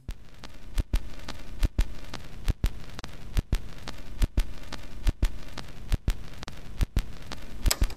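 Pairs of sharp clicks, repeating a little faster than once a second, over a steady hiss.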